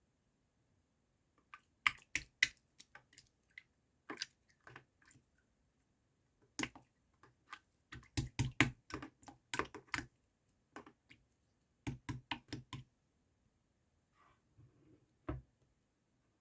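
Irregular clusters of sharp clicks and taps, several a second, in bursts separated by short pauses.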